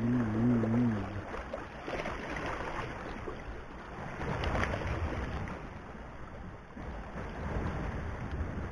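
Wind buffeting the microphone over water lapping against a rock breakwater, with a brief wavering hum in the first second.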